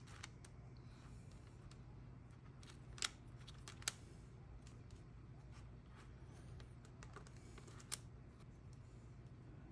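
Near silence: a low steady room hum with a few faint, short clicks, one about three seconds in, another a second later and one near the end.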